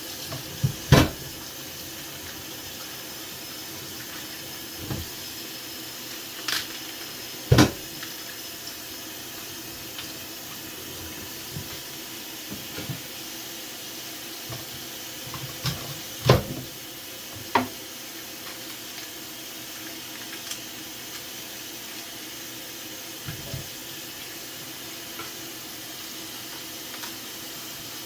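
Water running steadily from a kitchen tap into a basin, with a few sharp knocks of things being handled in and around the sink, the loudest about a second in and again around eight and sixteen seconds in.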